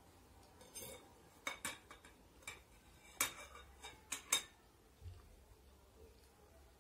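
Metal fork and spoon clinking against a ceramic bowl, then a glass mug being handled: a string of sharp, separate clinks, the loudest a little over three and four seconds in.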